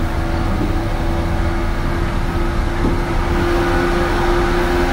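JR 117 series (300 subseries) electric train running: a steady rumble and hum with a constant tone that holds its pitch throughout.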